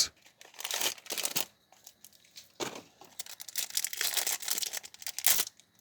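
Small candy packaging being torn open and crinkled by hand, in irregular bursts of crackling with short pauses.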